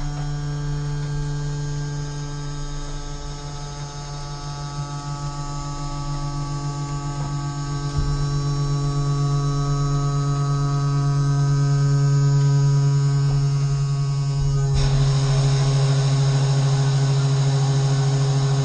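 Waste compactor container's hydraulic drive running with a steady hum that grows louder as it works. About fifteen seconds in, a rushing hiss joins the hum.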